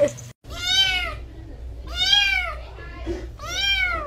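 A kitten meowing three times, each a high, rising-then-falling meow about a second and a half apart.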